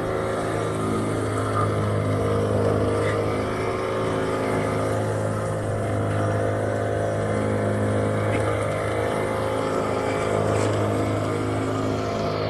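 Boat engine running at a steady speed, a constant drone that neither rises nor falls.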